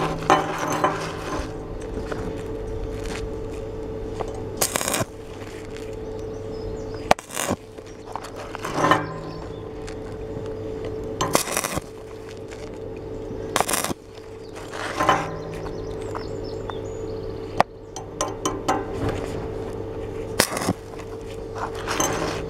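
Stick (arc) welding on thin 2.2 mm square steel tubing, the electrode struck in short repeated bursts every two or three seconds to build up weld across a large hole, each burst crackling and spitting sparks. A steady low hum runs underneath.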